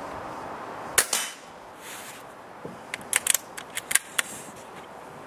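Brocock Compatto PCP air rifle firing once about a second in, a sharp report with a quick second crack and short ring after it. About two seconds later comes a quick run of sharp metallic clicks as the sidelever is worked to cock it for the next shot.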